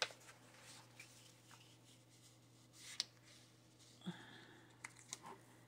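Faint handling of paper: a patterned paper panel and a brown paper bag being picked up and laid down on a cutting mat, with a few soft taps and a brief rustle about four seconds in, over a low steady hum.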